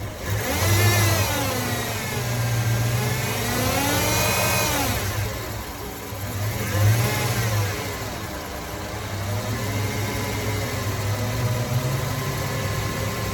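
2004 Jeep Grand Cherokee engine running and being revved up and down three times, then running more steadily. The engine now runs after a crank-but-no-start fault.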